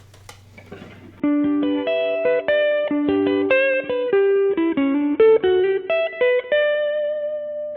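Electric guitar with a Lace Alumitone neck pickup split to single-coil mode, played through an amp: a faint hum, then about a second in a quick run of single notes that ends on a note left to ring.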